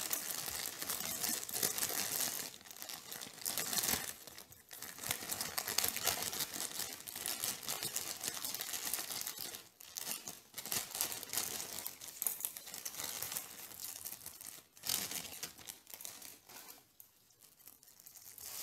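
Clear plastic packaging bags rustling and crinkling as hands open one and pull out a stethoscope. The rustle comes on and off with a few short pauses and dies down near the end.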